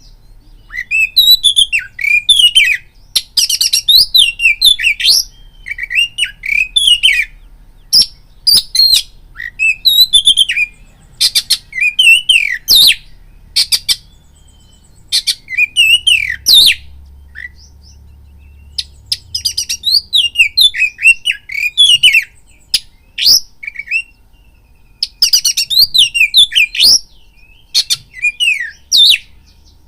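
Oriental magpie-robin singing loud phrases of quick, varied whistles mixed with sharp clicking notes. The phrases last a few seconds each, with short pauses between them.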